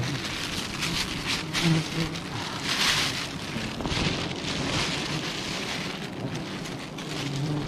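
A plastic bag rustling and crinkling as it is handled, with honeybees buzzing briefly past, once about two seconds in and again near the end.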